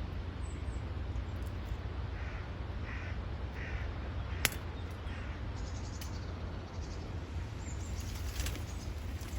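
A bird calling in the hedgerow: four short, rough notes about two-thirds of a second apart, followed by a single sharp click, over a steady low rumble on the microphone.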